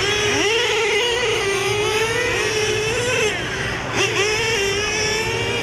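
Radio-controlled model race cars running on the track, their small high-revving motors whining and rising and falling in pitch as they speed up and slow down through the corners, several overlapping. A short knock about four seconds in.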